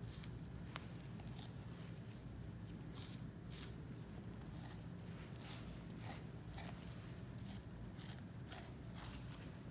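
Butcher's knife slicing through the fat and membrane of a Japanese Black wagyu outside plate, a run of short cutting strokes about one or two a second, over a steady low hum.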